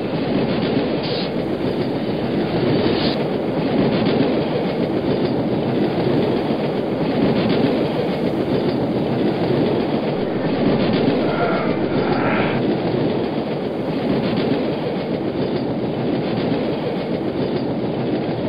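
A train passing close by, its steel wheels making a steady, loud rumble on the rails.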